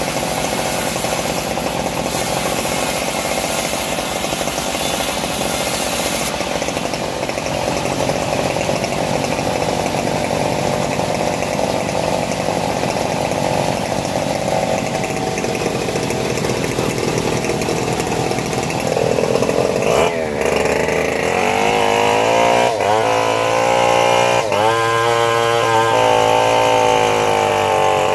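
Homemade bandsaw mill running steadily as its blade cuts through a teak log. About two-thirds of the way through, a Stihl chainsaw joins in louder on top, revving up and down repeatedly.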